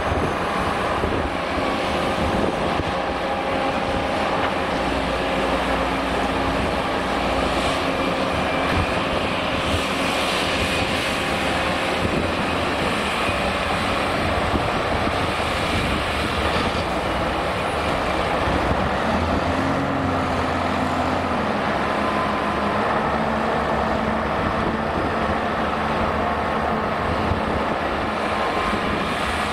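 Steady heavy diesel engine and hydraulic running of a Liebherr R980 SME front shovel digging and swinging, mixed with a BelAZ 7547 mining dump truck's engine as it moves into loading position. The engine pitch rises and falls briefly about twenty seconds in.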